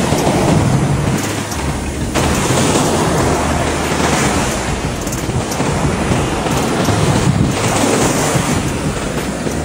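Ocean surf washing in at the water's edge, with wind buffeting the microphone.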